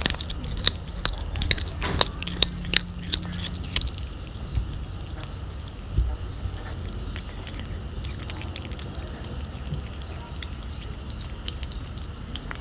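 Calico cat biting and chewing raw fish close to the microphone: sharp, wet crunching clicks, frequent and loud for the first few seconds, then sparser and fainter.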